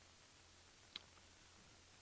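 Near silence: room tone, with a single faint click about a second in.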